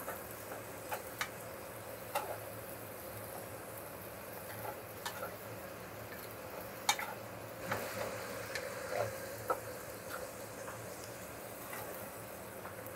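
Rice and egg sizzling faintly in a stainless steel pan as they are stir-fried with a wooden spatula, with scattered light scrapes and taps of the spatula against the pan.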